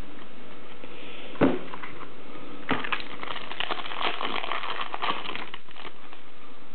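A stack of Upper Deck Hardcourt basketball cards being thumbed through by hand: one sharp card snap about a second and a half in, then a run of quick crackling ticks as the cards slide over one another.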